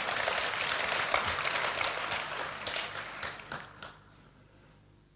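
Audience applauding, the clapping dying away about four seconds in and leaving only a faint steady hum.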